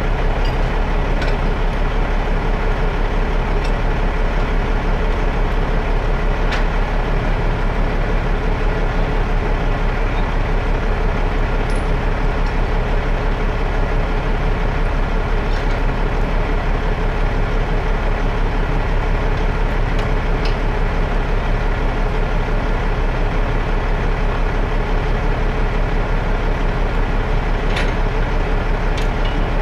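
The diesel engine of a Peterbilt V100 heavy rotator wrecker running steadily at a constant speed with a deep low hum, heard close up from on the truck. A few faint, light clicks are scattered through it.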